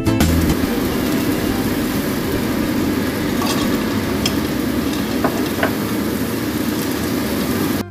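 Egg and diced vegetables sizzling steadily in oil in a nonstick frying pan as they are stirred, with a few light clicks of chopsticks and a small bowl against the pan near the middle as the vegetables are tipped in.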